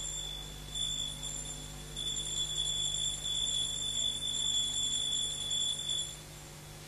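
A high, steady ringing tone that sounds in stretches with short breaks, over a low steady hum.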